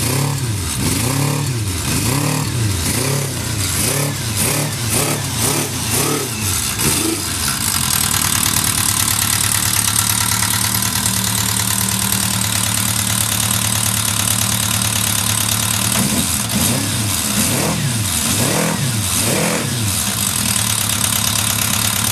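Kawasaki Z550's air-cooled inline-four engine running, blipped up and down several times by hand, then settling into a steady, stable idle. It is revved a few more times near the end and then stops abruptly.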